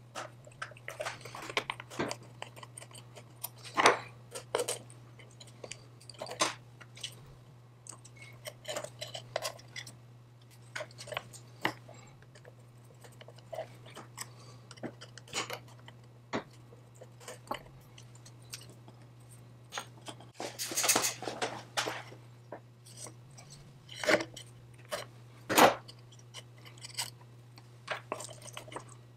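Hand work on small metal chainsaw parts: irregular clicks, taps and scrapes, with a louder rasping scrub about 21 seconds in. A steady low hum runs underneath.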